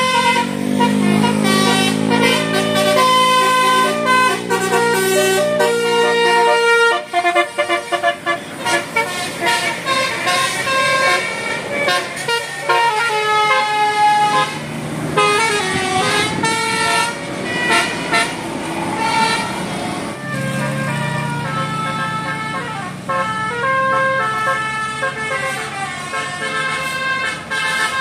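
Bus 'telolet' musical air horns of the Basuri type playing quick multi-note tunes, one horn after another, with a bus engine humming underneath at times.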